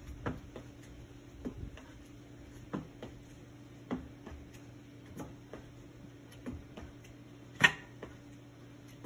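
Sneakers landing on a wooden plyo box in scissor step-ups: a light knock a little more than once a second, with one much sharper, louder knock near the end.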